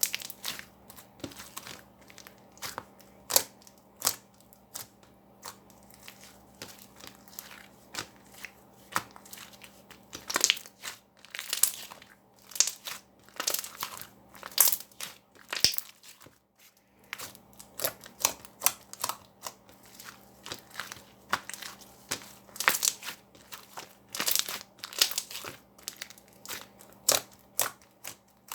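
Handmade slime being squished and pressed by hand, giving irregular sharp sticky clicks and pops, sometimes in quick clusters.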